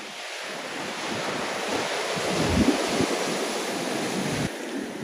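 Ocean swell breaking and washing white over a rock platform, a steady rushing surf. Wind gusts buffet the microphone with irregular low rumbles.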